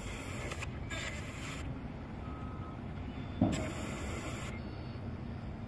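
Ghost box (spirit box) radio sweeping through stations: a steady hiss of static whose tone switches abruptly every second or two, with a brief louder blip about three and a half seconds in.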